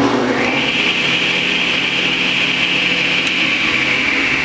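Delta Unisaw repulsion-induction 'bullet' motor switched on: its whine climbs over about half a second as it comes up to speed, then runs steadily over a low hum. It gets up to speed very quickly with none of the earlier growling, now that the shorting necklace spring is tightened all the way around.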